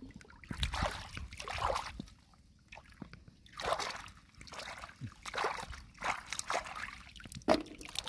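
Shallow, muddy water splashing and sloshing in irregular bursts as a person moves and works in it. The sharpest splash comes near the end.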